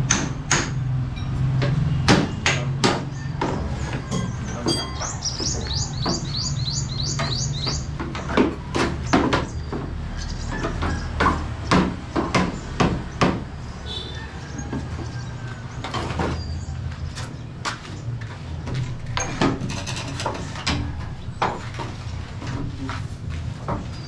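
Irregular knocks and taps of hand construction work over a low steady hum. About five seconds in, a bird gives a quick run of high chirps.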